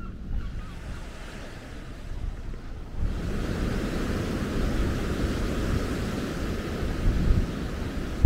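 Surf breaking on a sandy beach, with wind buffeting the microphone; the sound gets suddenly louder about three seconds in.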